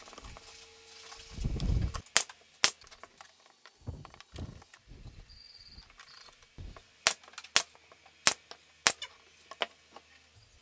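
Plywood parts being set down and knocked together on a wooden workbench: a series of sharp wooden clicks and knocks, with duller thumps about a second and a half in and around four seconds, and four quick clicks about half a second apart near the end.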